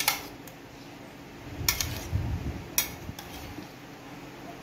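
A metal spoon and knife clinking against an enamel dish as cooked vegetables are tossed together: a few sharp clinks, with the soft shuffle of the vegetables turning in between.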